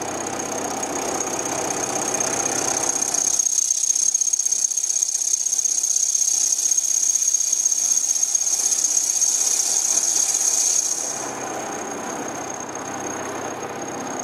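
Vertical milling machine's end mill cutting a 3 mm deep slot in a 4140 steel cutter body under flood coolant, with a steady high-pitched whine. The cutting noise gets louder about three seconds in and eases off near eleven seconds.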